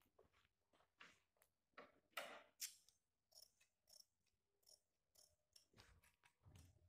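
Faint snips of fabric scissors trimming cloth, in a series of short irregular cuts with light rustling of the fabric; the loudest snips come about two to three seconds in.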